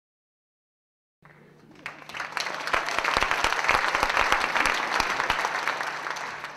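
Silent for about a second, then a concert audience applauding: the clapping swells, holds, and dies away near the end.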